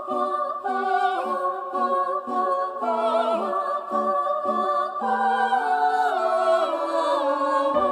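A male voice humming a slow, wordless melody with no audible accompaniment, stepping from note to note.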